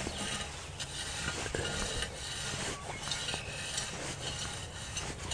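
Metal-bladed thatching rake lightly raking grass seed into a thin layer of topsoil: a soft scraping of the steel tines through the loose dirt.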